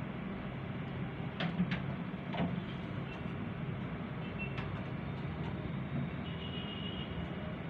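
Steady low rumble of outdoor ambient noise, with a few sharp clicks in the first half and a thin high tone held briefly near the end.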